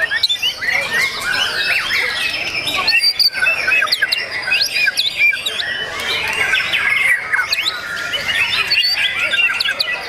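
Many caged white-rumped shamas singing at once: a dense, continuous tangle of overlapping whistles, trills and chirps.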